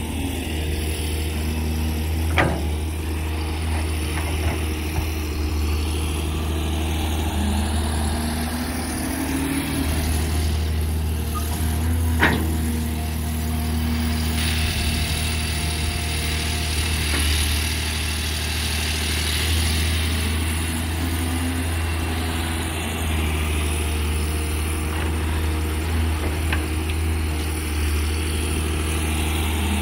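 Caterpillar 320D hydraulic excavator at work, its six-cylinder diesel engine running steadily, the note rising and falling a little with the load of digging and swinging. Two sharp knocks stand out, one a couple of seconds in and a louder one about twelve seconds in.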